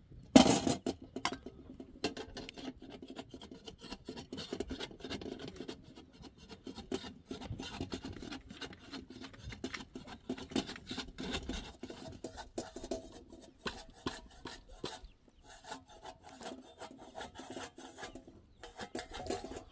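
Dry scraping and rubbing with dense small crackles as flatbread is turned and handled on a domed iron griddle (saj) over a wood fire. A sharp, loud scrape or knock comes about half a second in.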